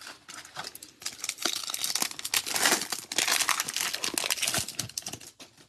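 Foil wrapper of an Upper Deck Series One hockey card pack crinkling and tearing as it is taken from the box and ripped open by hand. The crackling starts about a second in, is busiest in the middle and dies down near the end.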